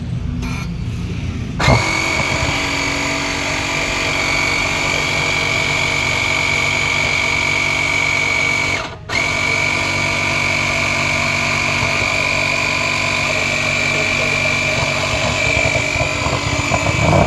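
Portable thermal fogging machine being started, giving a steady high-pitched whine over a low rumble. The whine comes on suddenly about two seconds in, cuts out for a moment near nine seconds and then resumes.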